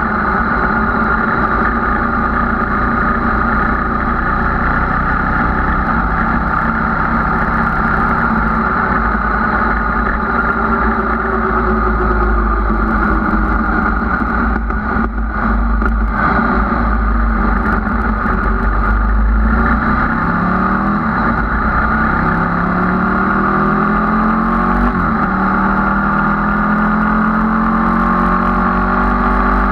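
Sport motorcycle engine heard on board while riding: a steady cruising drone, a brief dip around the middle, then pitch rising as it accelerates, dropping back once and rising again, then dropping near the end.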